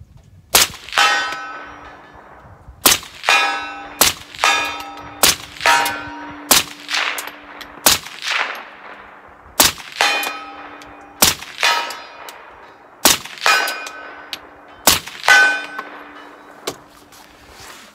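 About ten rifle shots from a 7.62x39 AR-15 firing steel-cased ammunition, a second or two apart. Most shots are followed a fraction of a second later by a ringing clang, the bullet striking a steel target. Every round fires with no light primer strike: the enhanced firing pin is setting off the hard steel-case primers.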